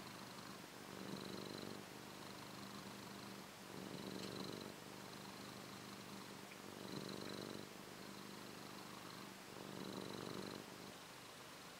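Orange tabby cat purring in its sleep, a faint steady purr that swells louder about every three seconds.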